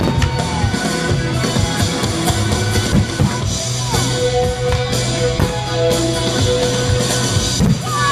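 Loud music with drums over sustained bass notes, a higher note held through the middle.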